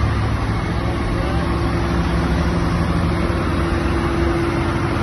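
Tractor's diesel engine running steadily as it drives slowly past, towing a trailer, with a steady low engine note.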